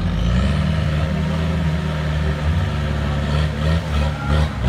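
Trial 4x4 buggy's engine running hard under load as it climbs a steep dirt slope, the revs surging and dropping repeatedly in the second half.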